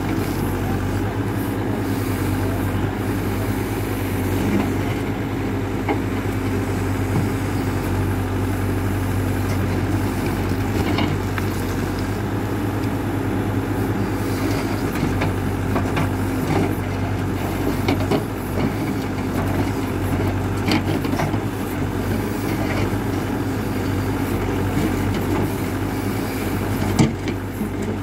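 Hidromek 102B backhoe loader's diesel engine running steadily under work, with a few sharp knocks from the machine, one about eleven seconds in and one near the end.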